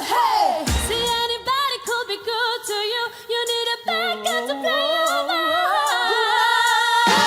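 A vocal group singing in close harmony, largely unaccompanied, several voices with vibrato moving between notes and then holding a sustained chord through the second half.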